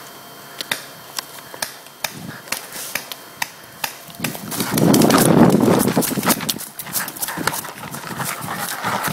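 Footsteps on a dry dirt and leaf-litter trail, about two crisp steps a second. About four seconds in comes a louder stretch of rustling and crunching for about two seconds as the walker moves through brush, and steps follow after it.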